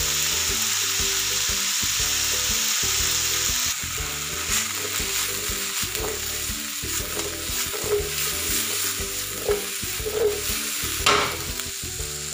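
Diced carrots, potatoes and bell pepper sizzling in oil in a nonstick wok. The steady sizzle drops about four seconds in. The vegetables are then stirred and tossed, with scraping and knocks against the pan, the loudest near the end.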